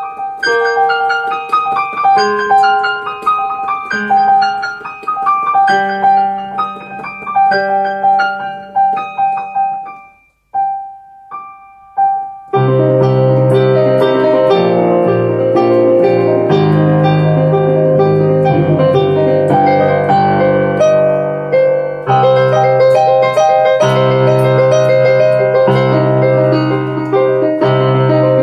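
Digital piano playing a solo piece. A quick, light melody runs for about ten seconds, then thins to a few single high notes. From about twelve seconds in, the playing is fuller and louder, with low bass notes under dense chords.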